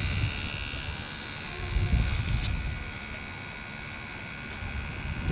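Small electric fuel pump whining steadily as it transfers fuel from a can into the RC plane's tank, with a few low handling bumps.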